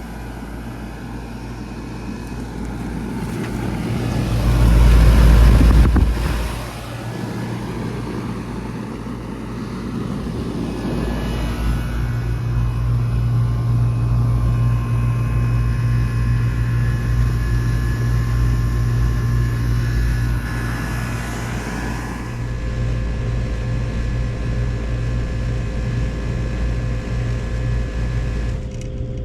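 Bard wall-mount HVAC unit running in cooling mode: a steady compressor hum under the whir of the fans, with several steady tones. A loud low rumble swells and fades about five seconds in.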